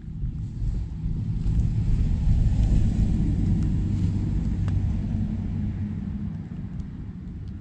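Low rumble of a passing vehicle, swelling to a peak about two to three seconds in and then slowly fading away.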